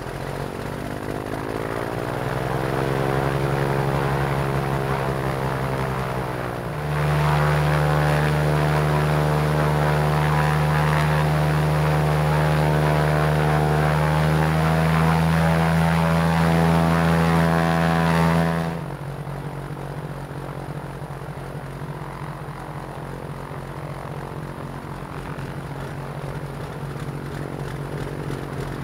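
Beechcraft Baron 58P piston engine and propeller catching on start and running up to speed over the first few seconds. About seven seconds in it steps up to a louder, higher-pitched steady speed. About 19 seconds in it drops back to a lower, steady idle, and it begins to rise again near the end.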